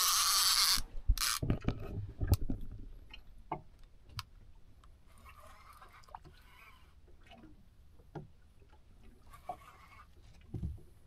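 Spinning reel being cranked against a hooked fish, its drag buzzing in short bursts as line is pulled off, with scattered clicks and knocks on the boat. The loudest buzz is at the very start, with shorter ones about halfway through and near the end.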